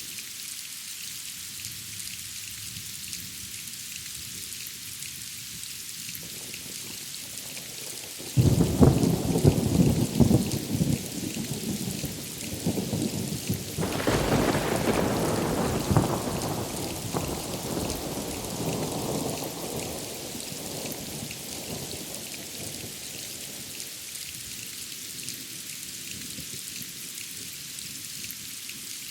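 Steady rain hiss. About eight seconds in, thunder breaks in suddenly with a loud low rumble, surges again a few seconds later, and rolls away over the next several seconds, leaving the rain alone.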